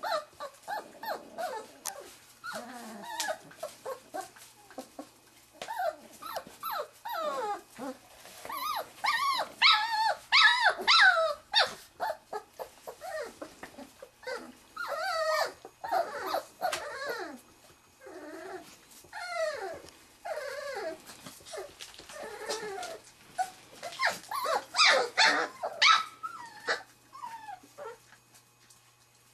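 A litter of three-and-a-half-week-old Wirehaired Pointing Griffon puppies whining, yipping and growling in many short, wavering cries, louder in two stretches, about a third of the way in and again near the end.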